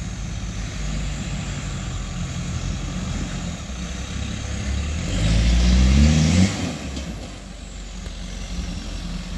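Off-road 4x4 vehicle's engine running, revving up with rising pitch about five seconds in, then easing back off.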